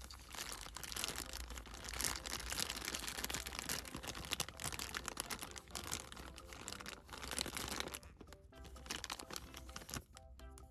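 Thin clear plastic bags crinkling as small toy parts inside them are handled, a dense crackling that eases near the end. Light background music runs underneath and comes through more plainly in the last few seconds.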